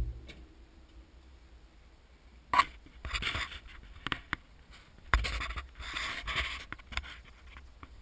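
Handling noise close to the microphone: short bursts of scraping and rubbing with a few sharp clicks.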